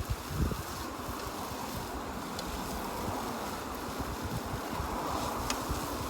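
Wind rumbling on the microphone, with a stronger gust about half a second in and two faint sharp crackles later on.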